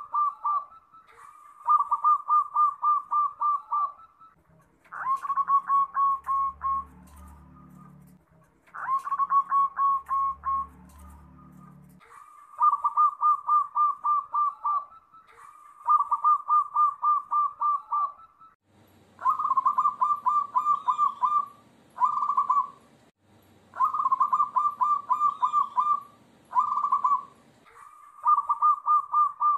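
Zebra dove (perkutut) cooing: its song given over and over, each phrase a quick run of cooing notes about two seconds long, with short pauses between, some phrases closed by a short separate note.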